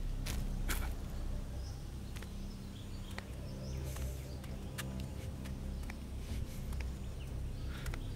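A steady low rumbling drone under outdoor ambience, with scattered light footsteps and rustles, and a few faint bird chirps.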